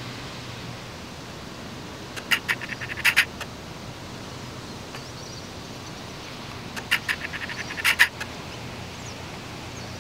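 An animal call, heard twice: each time a quick run of clicking notes that ends in a couple of louder notes, lasting about a second. The calls come about two seconds in and about seven seconds in.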